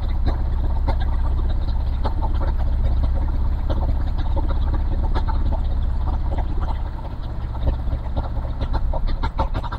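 Yamaha Jupiter MX King's liquid-cooled single-cylinder engine idling steadily while coolant glugs from a jug into the open radiator filler neck. The refill is done with the engine running to purge air after a water pump seal replacement. The pouring stops about seven seconds in.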